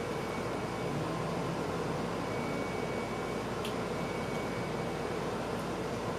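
Steady background hiss and hum of a fan running in a small room, with one faint click about three and a half seconds in.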